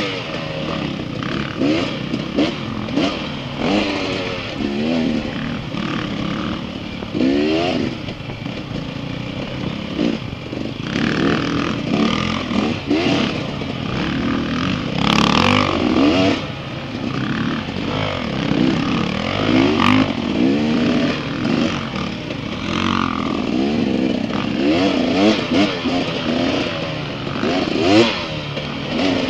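Dirt bike engine ridden hard on a rough trail, its pitch climbing and dropping every second or two as the throttle is worked and gears change.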